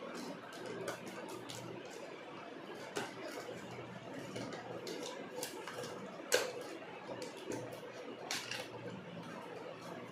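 Plastic wrap and cardboard of a smartwatch box crackling and tearing as it is opened by hand, with scattered small clicks and a few louder sharp snaps.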